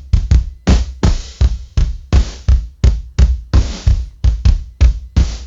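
AI-generated drum machine beat playing a funky rhythm: deep kick drum hits and snare or hi-hat strikes in a steady pattern, about three a second.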